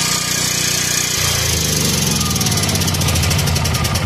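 Generator set's small engine running, steady at first, then about a second in its note turns rougher and pulsing.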